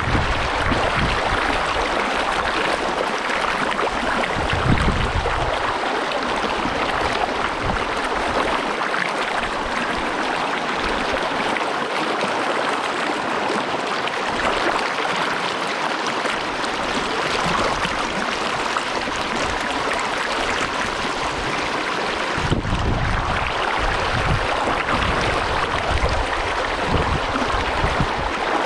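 Big Rock Creek's water rushing steadily over rocks. Low buffeting from wind on the microphone comes in over the first few seconds and again from about three quarters of the way through.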